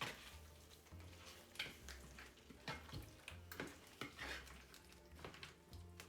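A spoon stirring a pan of vegetables, paneer and nuts in a thick korma sauce, scraping and clinking against the pan at an irregular pace. The sound is faint.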